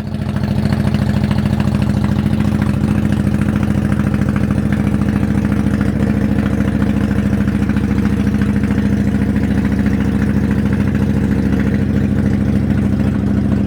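A vehicle engine running loud and close at a steady, unchanging speed.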